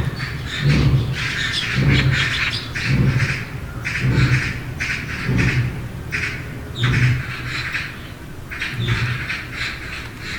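An animal calling over and over in a series of harsh, raspy calls, about one a second.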